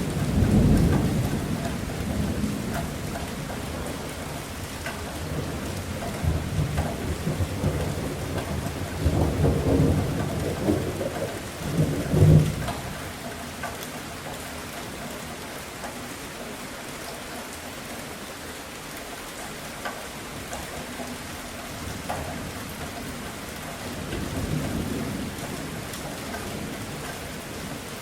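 Steady rain falling, with rolling thunder rumbling through the first half, swelling to its loudest peak about twelve seconds in and then fading, and a fainter rumble of thunder near the end.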